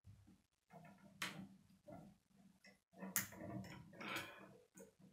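Plastic K'nex rods and connectors clicking and rattling as hands work the model, with a few sharp snaps, one about a second in and another just after three seconds.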